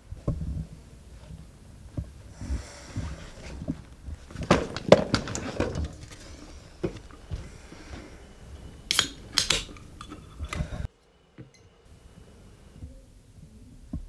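Rustling and clattering as an aluminium drink can is handled, then the can's ring-pull cracks open with short sharp hisses of escaping gas, about nine seconds in.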